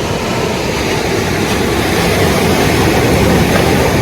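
Steady roar of ocean surf washing against shore rocks, with wind buffeting the microphone.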